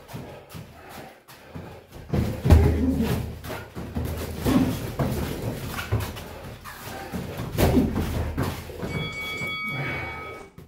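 Boxing sparring: irregular thuds and slaps of gloved punches landing on gloves and headgear, with feet moving on the ring mat and short voice sounds. About nine seconds in, a steady high tone sounds for about a second and a half, and the sound cuts off suddenly.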